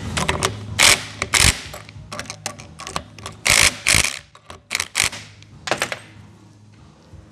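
Cordless impact wrench hammering in short trigger bursts on the nut at the top of a rally shock's shaft: two longer bursts about a second in, two more around the middle, then a few brief blips.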